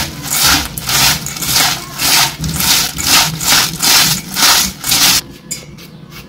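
A hand mixing dry, crisp bhel of crushed fried kurdai in a steel bowl: crunching and rustling in rhythmic strokes, about two or three a second, stopping about five seconds in.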